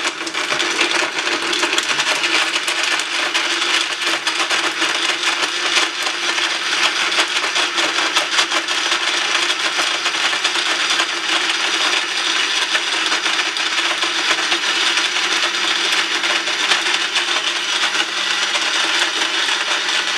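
Countertop blender with a glass jar running steadily at speed, pureeing a thick mixture of food into a smooth liquid.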